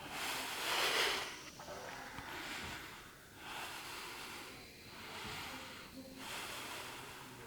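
A person breathing deeply and audibly during a pranayama breathwork practice: about six hissing breath strokes, each a second or so long, the loudest about a second in.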